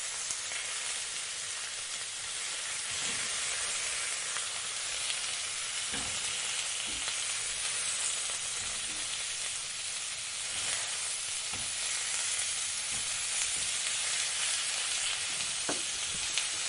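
Food sizzling steadily in a hot frying pan, with a few faint clicks scattered through it.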